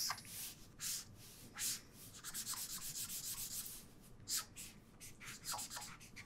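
Broad felt-tip marker scratching across paper in a series of short back-and-forth strokes, shading an area solid black; the strokes come quickest in the middle.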